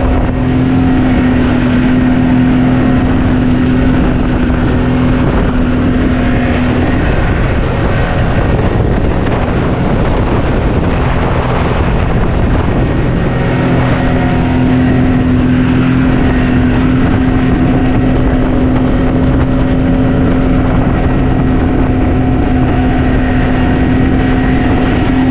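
Outboard motor of a small open fishing boat running steadily at cruising speed, under a continuous rush of water and wind. Partway through, the engine's steady tone drops back into the rush for several seconds, then comes back.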